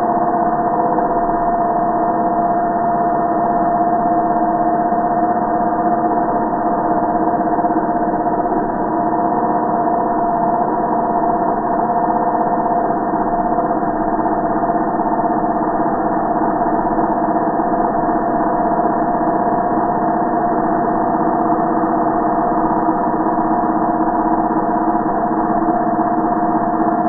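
Angle grinder running steadily, heard slowed down with the slow-motion footage, so it comes out as a low, even drone with two held tones and no change in pitch.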